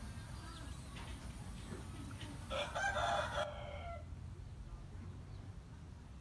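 A rooster crowing once, a pitched call lasting about a second, a little over two seconds in.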